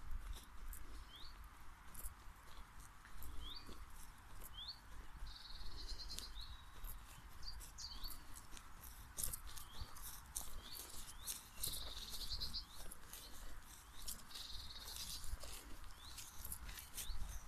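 Wild birds singing: short rising chirps repeated every second or so, with buzzy trills between them. Beneath them, footsteps brushing through long grass and a steady low rumble.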